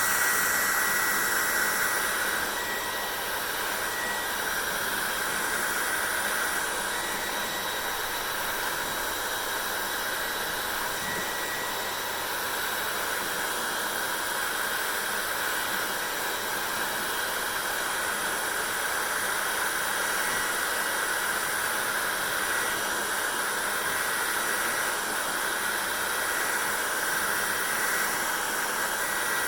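Hair dryer running steadily: a constant blowing hiss with a faint high whine, a little louder for the first couple of seconds.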